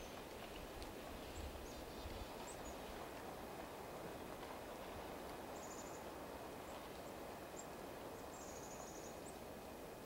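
Small songbirds calling: scattered short, high chirps, with a rapid buzzy chatter about halfway through and another near the end, over a steady low outdoor hiss.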